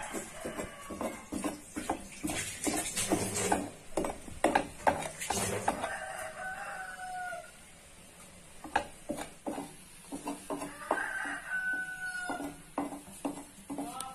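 A metal spatula scraping and tapping on an iron tawa as an omelette cooks, in many short clicks and scrapes. Behind it a rooster crows twice: once about six seconds in and again about five seconds later.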